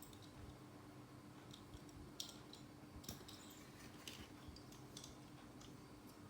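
Faint scattered clicks of small plastic toy vehicles being handled, over a low steady hum.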